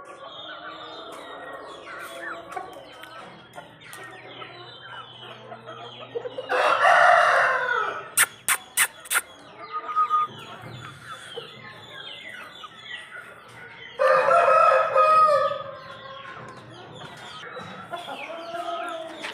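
Young Aseel chickens peeping and clucking continually, with two loud drawn-out calls, each about a second and a half long, about a third of the way in and again past the middle. Four sharp clicks follow quickly after the first loud call.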